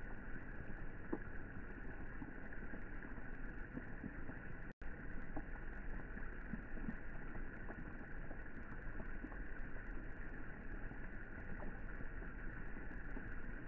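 Rain falling into a swimming pool: a steady hiss of drops on the water with small scattered ticks, dull-sounding with no high end. The sound cuts out for an instant about five seconds in.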